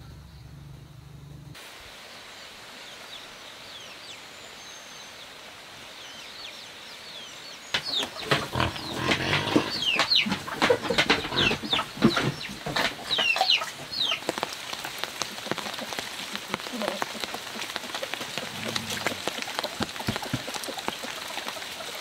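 Steady rain falling. About eight seconds in, young piglets break into a rapid run of high squeals for about six seconds, then only the rain remains.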